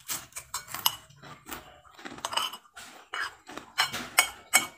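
Cutlery clinking and scraping against a dish in a quick, uneven run of taps, each with a brief metallic ring.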